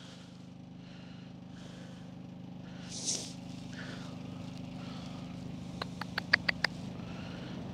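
A vehicle engine hums steadily and slowly grows louder. A quick run of five or six sharp clicks comes about six seconds in.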